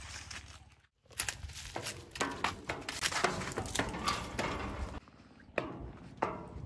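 Footsteps crunching and scuffing over debris, thinning near the end to a few separate knocks of steps.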